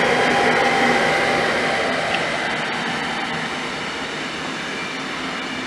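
A Siemens Vectron electric locomotive passes close at speed, followed by wagons carrying lorry trailers, making a loud steady rolling rush. A few steady tones from the locomotive fade within the first second as it moves off, leaving the wagon noise, which eases slightly toward the end.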